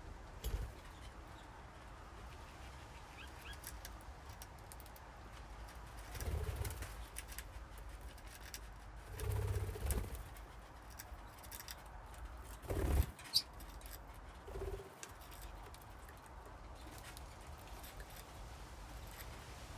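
Budgerigars in a colony cage: scattered short clicks and chirps, with a few low thuds and rustles of birds moving about, and one brief high chirp about 13 seconds in.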